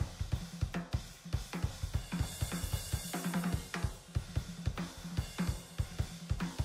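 Sugar Percussion stave-shell drum kit played in a busy groove, with kick drum, snare, hi-hat and cymbals, close-miked in a recording studio. A cymbal rings out from about two seconds in.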